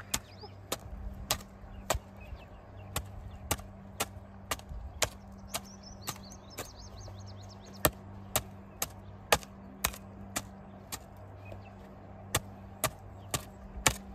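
Sharp knocks repeating about twice a second, with a few short pauses, over a steady low hum.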